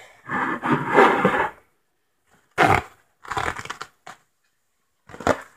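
Paper towel crinkling and rustling as it is handled and crumpled, in about five short bursts, the longest in the first second and a half.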